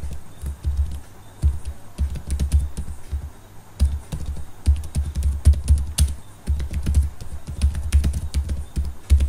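Typing on a computer keyboard: irregular runs of key clicks with dull thumps, broken by short pauses.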